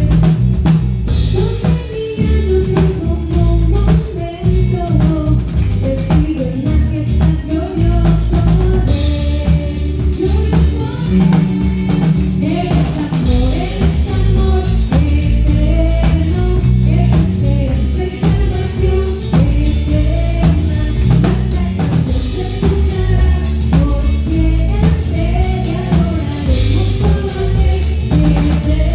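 Live band playing through a PA system: drum kit, congas and electric guitars, with a voice singing.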